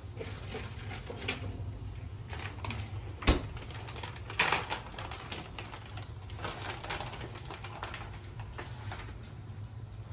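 Irregular clicks and crinkles of a plastic bag of shredded cheese being opened and handled, with one sharp tap about three seconds in and a louder crinkling burst a little after. A steady low hum runs underneath.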